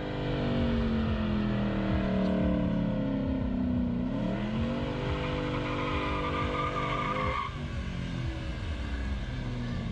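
Ford Mustang doing a burnout: the engine holds high revs that sag slightly, then climbs higher about four seconds in as the tyres squeal, and the revs drop off suddenly about seven and a half seconds in.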